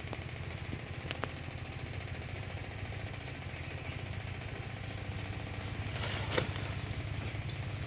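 A small engine running steadily with a low, even chug. About six seconds in comes a brief rustle of a woven plastic sack as a fish is put into it, with a couple of light clicks earlier on.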